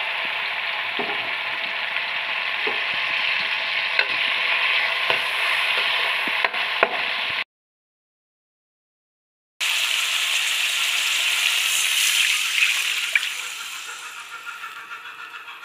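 Garlic, shallots and bagoong sizzling in hot oil as they are sautéed in a wok, with a few sharp clicks of a spatula against the pan. The sound drops out completely for about two seconds in the middle. Near the end the sizzle dies away as water goes into the pan.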